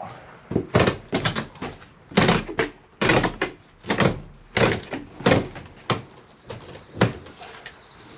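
Porch screen mesh being pulled free and handled: a run of short rustling and scraping noises at irregular intervals, about one or two a second.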